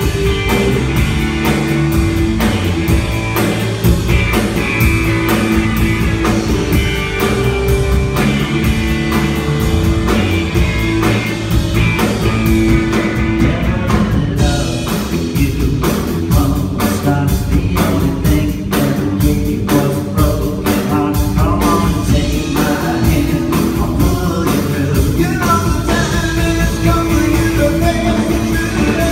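Live rock band playing: electric guitar, electric bass and a drum kit, with singing.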